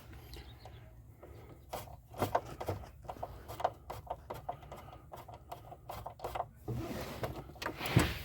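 Irregular light clicks and scrapes of hand work on a truck's accelerator pedal assembly: small parts and a hand tool being handled against metal while the new throttle position sensor is fitted, over a low steady hum.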